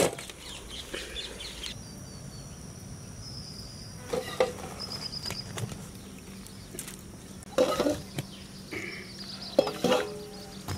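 Scattered knocks and clatter of firewood and embers being set down on an upturned aluminium plate, a few separate bumps. Birds chirp in short rapid trills in the background.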